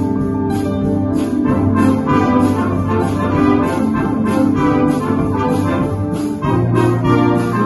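Amateur wind band playing together, with clarinets, trumpets, trombones and a stage piano. There is a brief break about six and a half seconds in, then a new chord with stronger low notes.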